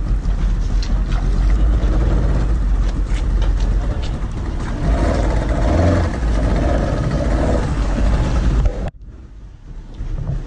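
Steady low motor rumble with rushing wind noise on the microphone, as from a moving vehicle or boat. It drops away abruptly about nine seconds in and comes back near the end.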